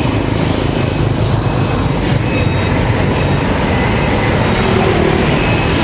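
Steady street traffic noise with vehicle engines running close by, a low hum under a broad rushing noise.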